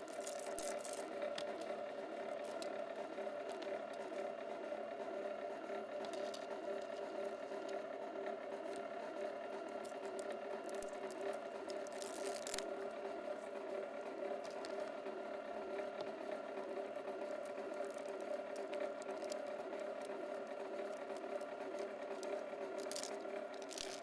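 BLUEROCK MWS-808PMO motorized wire stripper running, its 1 HP electric motor and gear drive giving a steady hum. Stranded THHN copper wire is fed through the cutting channels, with occasional brief scrapes and rattles as the wire goes through.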